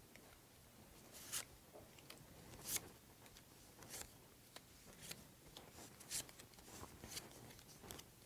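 Faint taps and light rustles of small card pieces being picked up and laid down one by one on a paper map on a wooden table.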